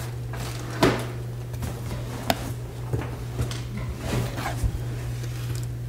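Cardboard box being handled and opened: a few scattered knocks and scrapes of cardboard, over a steady low hum.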